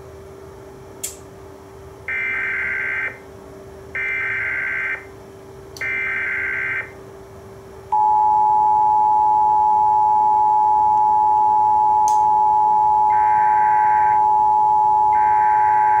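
Emergency Alert System SAME header: three one-second bursts of digital data warble. From about eight seconds in, the steady two-tone EAS attention signal (853 and 960 Hz) follows. Near the end, a second, fainter set of data bursts overlaps the attention tone, over a faint steady hum.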